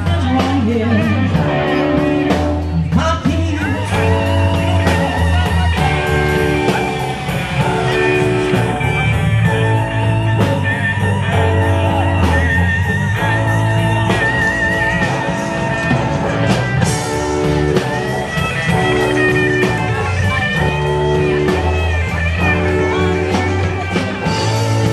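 Live blues band playing: electric guitar and a low bass line that repeats about every two seconds.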